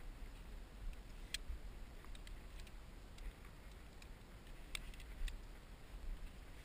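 A handful of sharp, light clicks and ticks as climbing rope and metal gear are handled, over a low rumble.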